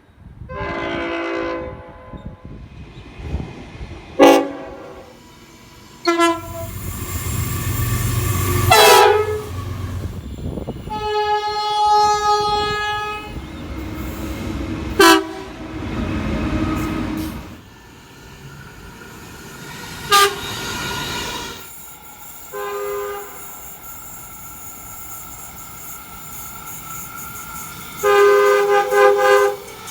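Train horns sounding in a string of separate blasts, several seconds each, cut abruptly one after another, with the rumble and wheel clatter of a passing train under some of them.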